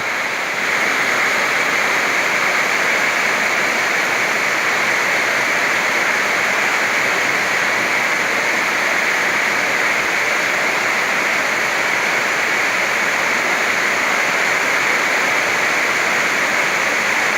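Very heavy rain pouring down steadily in a summer storm.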